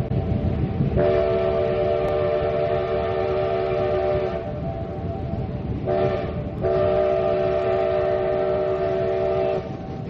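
Steam locomotive's chime whistle sounding several tones at once: a long blast, a short one and another long one, the close of a grade-crossing signal. The train's low running noise continues beneath.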